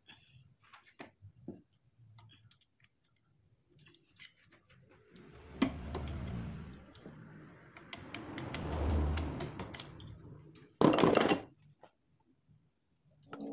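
Hands working on the metal valve gear of a Honda Vario 125's opened cylinder head: scattered small metal clicks and taps as the rocker arms and rocker arm shaft are handled. There are two stretches of low rustling, and a loud scrape of under a second about eleven seconds in.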